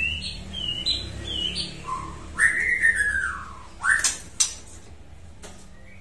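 White-rumped shama (murai batu) whistling: a quick run of short high notes, then a longer arching whistle and one more rising note. A single sharp click comes about four seconds in.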